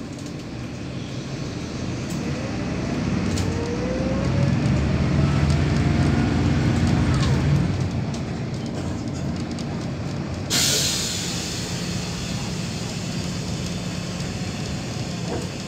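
Interior sound of a Neoplan K4016td city bus pulling away: its MAN D0826 straight-six diesel and ZF 5HP500 automatic gearbox build up with a rising gear whine, then the note drops as the gearbox shifts up. About ten and a half seconds in comes a sudden loud hiss of compressed air.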